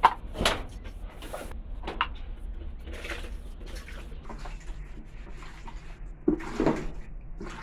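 A cow being hand-milked into a plastic bucket: scattered knocks and rustles of the bucket and the milker's hands, and a louder sound about six and a half seconds in.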